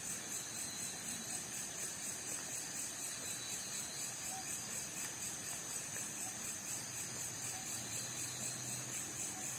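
A steady chorus of night insects, crickets or katydids, trilling high-pitched with an even pulse.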